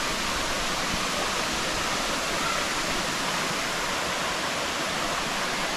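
Waterfall rushing: a steady, even rush of falling water.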